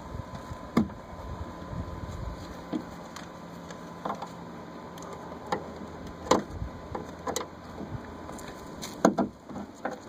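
Scattered metal clicks and knocks from a small socket and the trunk-lift strut's end fitting as the strut is worked free of its bracket. The sharpest knocks come about a second in, about six seconds in, and near the end.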